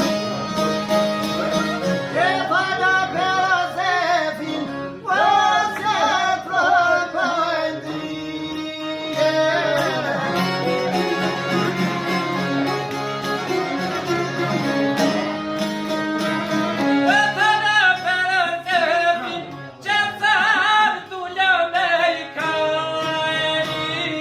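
A song with a solo voice singing ornamented, wavering phrases over violin and plucked-string accompaniment; the voice drops out for an instrumental stretch in the middle and comes back near the end.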